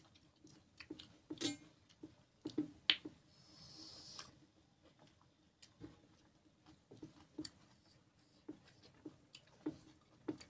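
Close-up eating sounds: chewing and mouth-smacking with irregular small clicks and squelches, as fingers mix rice on metal plates. A brief hiss, like a sniff, comes about four seconds in.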